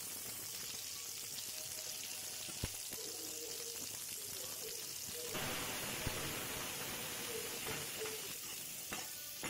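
Chopped onions and dried red chillies sizzling as they fry in oil in a pan, the sizzle growing louder about five seconds in. A few sharp clicks from a metal spatula stirring them.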